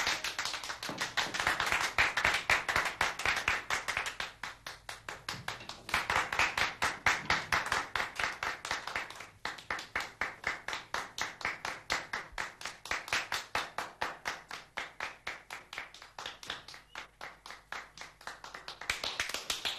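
A small group of people clapping their hands in applause, a steady run of quick claps.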